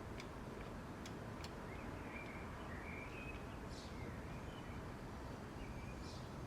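Steady outdoor background noise with faint, short bird chirps scattered through it, and a few light clicks in the first second and a half.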